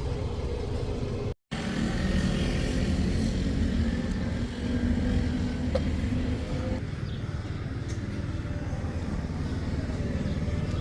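Road traffic: cars running past on a street, a steady low engine and tyre rumble, with a brief cut to silence about a second and a half in.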